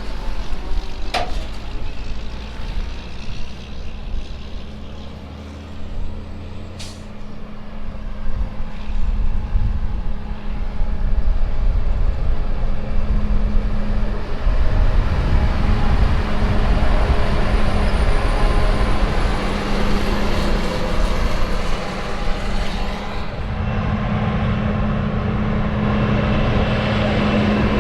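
Heavy diesel harvest machinery running steadily, growing louder after about ten seconds, with a brief hiss about seven seconds in.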